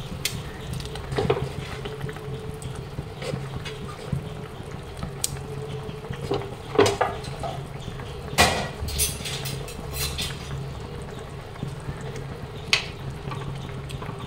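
Fish curry bubbling at a steady boil in a pot on the stove, with a few sharp clinks of cookware.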